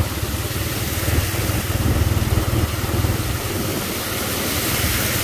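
Pickup trucks driving through shallow floodwater, their tyres throwing up a continuous splashing spray, over the steady low running of a motorcycle engine.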